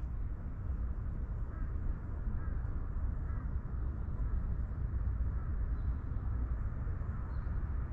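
Outdoor ambience: a steady low rumble with a few faint bird calls about two to three seconds in.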